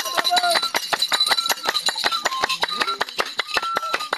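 Fast, even rhythm of clinking metal percussion strikes, about seven a second, many of them ringing briefly at two alternating pitches.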